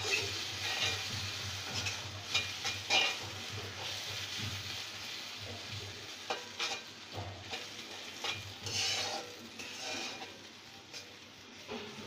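Spoon stirring and scraping a thick spice paste as it fries in oil in a metal pot, with a steady sizzle and irregular scrapes and clinks of the spoon against the pot. This is the masala being fried down (bhuna) until the oil separates.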